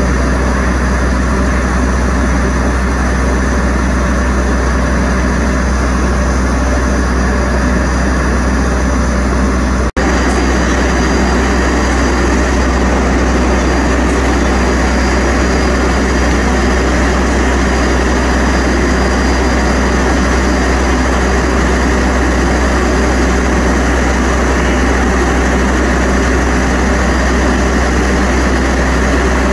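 Steady, loud low drone of an idling train engine, unchanging throughout, with a brief dropout about ten seconds in.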